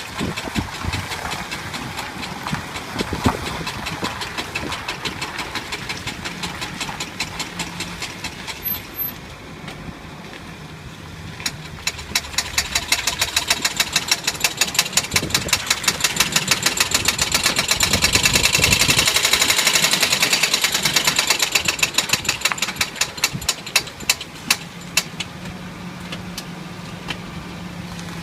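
Suzuki Jimny running with a sharp, rhythmic knocking that the owner suspects comes from the drive shaft. About a third of the way in the knocks become louder and quicker, then slow again and fade near the end.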